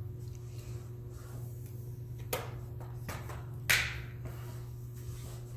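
Plastic palm rest of a Lenovo IdeaPad 310 laptop being pressed down onto the base, its clips snapping into place with two sharp clicks, one midway and a louder one about a second later, over a steady low hum.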